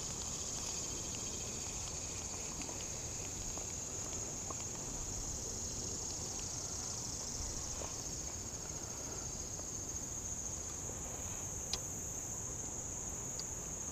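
Steady, high-pitched chorus of insects such as crickets, running on without a break, with one sharp click near the end.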